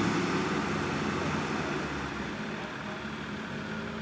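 Off-road 4x4 engine running, growing quieter over the first two seconds or so and then holding steady.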